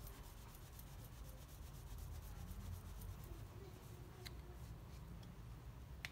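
Faint rubbing of a cloth rag over a small plastic washer-reservoir cap as it is wiped clean, with a light click about four seconds in and another at the end.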